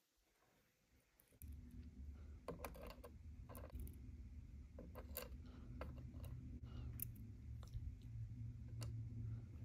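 Metal tweezers clicking and tapping against a small clear plastic tray as tiny miniature rice pieces are picked out. Scattered light clicks over a faint low hum, starting after about a second and a half of near silence.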